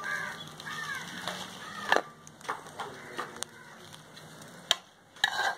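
An earthenware pot knocked and scraped against a steel plate as dry-roasted chilli and coriander powder is tipped out of it, with several sharp knocks, the loudest about two seconds in. Short bird calls sound in the background in the first couple of seconds.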